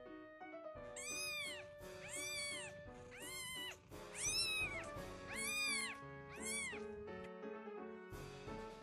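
Newborn kitten mewing six times, about once a second, each short call rising and then falling in pitch, over soft piano background music.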